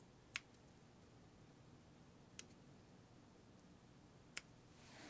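Three sharp clicks about two seconds apart over near-silent room tone: the jabs of a pretend acne injection in an ASMR roleplay.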